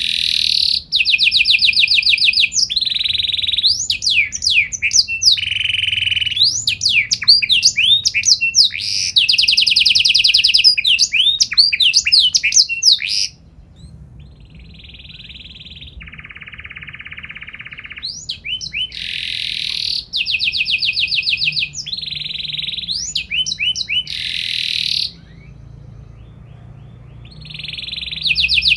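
Domestic canary singing a long, loud song of fast rolling trills and sweeping whistled notes, which drops to a softer, quieter warble about halfway through and again near the end before resuming at full volume.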